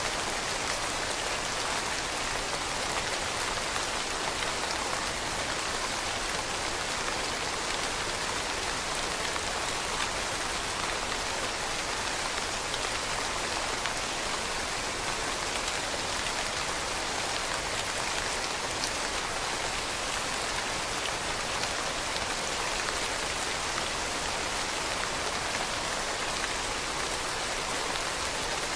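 Steady rain falling on leaves, a dense even patter of many small drops with no change in strength.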